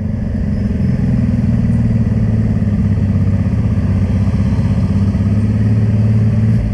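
Honda Transalp's V-twin engine running at low speed with an even, pulsing note, then cutting off near the end.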